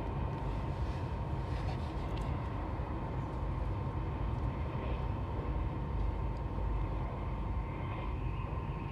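Moving passenger train heard from inside the carriage: a steady low rumble of wheels on rail, with a thin steady whine above it and a few faint clicks.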